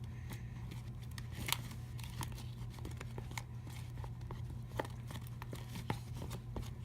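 Light, irregular clicks and taps from glitter being added to a bowl of fluffy slime mixture, over a steady low hum.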